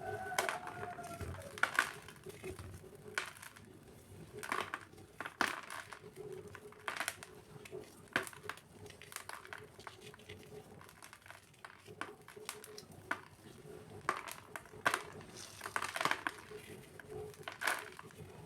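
Dry cement cubes being crushed, crunching and crumbling in irregular crackles and snaps, with a faint steady hum underneath.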